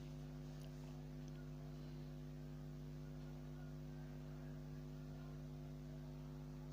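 Steady low electrical hum, a constant buzzy drone with no other events.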